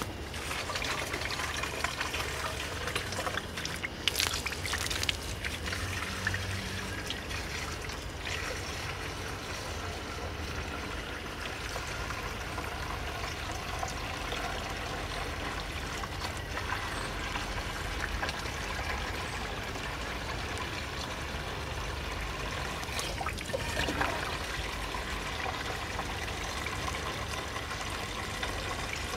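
Water from a garden hose running into a portable water tank, a steady trickling pour as the tank fills, with a few clicks and knocks of handling in the first few seconds and once more about 24 seconds in.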